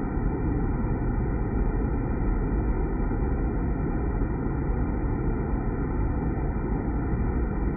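Water pouring and splashing into a stainless-steel deaerator tank, heard from inside the vessel as a steady low rush.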